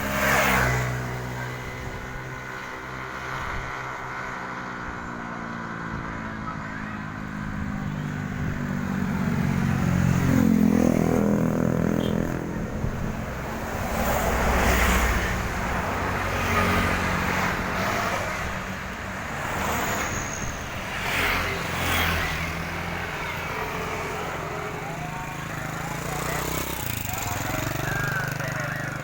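Road traffic: motor vehicles pass close by one after another over a continuous engine drone. The loudest passes come about ten, fifteen and twenty-two seconds in.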